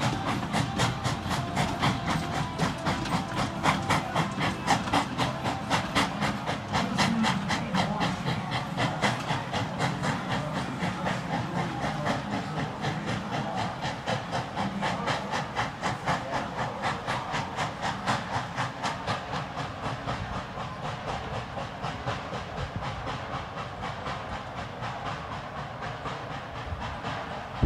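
Steam locomotive hauling a passenger train, its exhaust chuffing in a quick steady beat over a low rumble of the train, slowly fading as it draws away.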